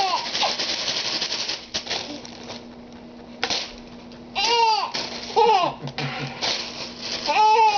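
A plastic grocery bag rustling and crinkling for the first couple of seconds, with a few more short crackles after. Then an infant gives three short, high-pitched bursts of laughter, the last near the end.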